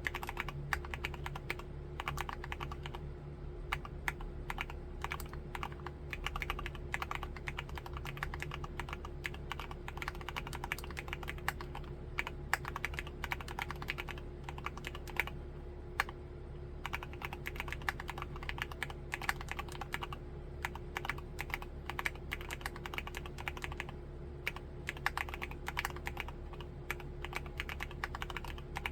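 Continuous typing on an MMstudio Class80 R2 mechanical keyboard with Cherry MX2A Black linear switches: a fast, irregular run of keystrokes.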